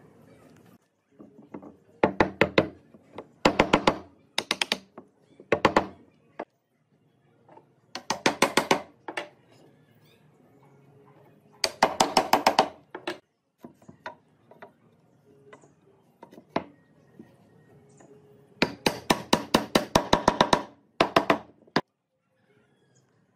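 Wood being struck in quick bursts of knocks, several fast strikes in each burst, about eight bursts with short pauses between.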